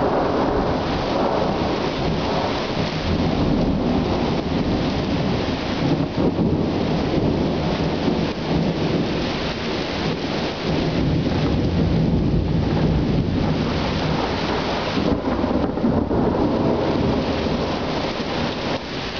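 Heavy rain falling during a violent thunderstorm, with thunder rumbling under it.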